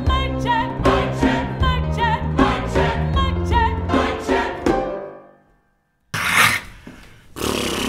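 Choir singing with vibrato over a steady beat, fading out about five seconds in. After a short silence, a loud rush of noise begins.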